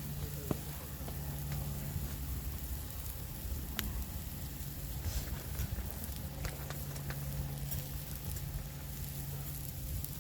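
Food sizzling on a small iron griddle over a campfire, with scattered sharp pops and crackles over a steady low hum.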